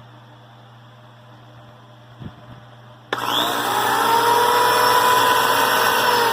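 Faint steady hum, then about three seconds in the Bosch PL2632K corded electric hand planer is switched on: its motor spins up with a quickly rising pitch and runs loudly at a steady high pitch.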